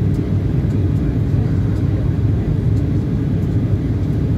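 Steady low rumble of a jet airliner's engines and airflow, heard inside the passenger cabin in flight.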